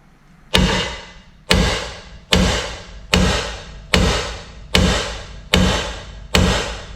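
Steady hammer blows on a steel suspension ball joint, about one strike a little more than every second, each hit ringing briefly as the part is beaten loose.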